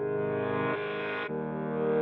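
Background music: held chords that change about every half second.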